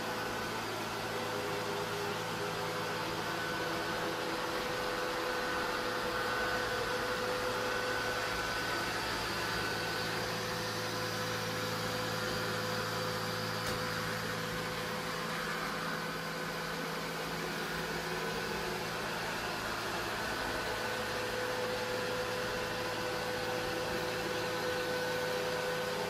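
Neato Botvac D7 robot vacuum running across a hardwood floor: a steady hum of its suction fan and brush motor with a hiss of airflow. The low part of the hum drops away for a few seconds midway, then returns.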